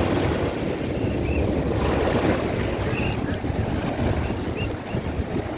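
Sea surf washing up the beach, with wind buffeting the phone's microphone.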